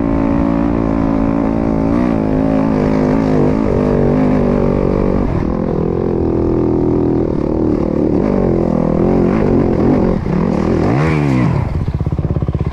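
Dirt bike engine pulling up a steep hill climb, its pitch rising and falling with the throttle. Near the end a quick rev up and back down as the bike goes down in a crash, then the engine runs on at a choppy, pulsing low speed.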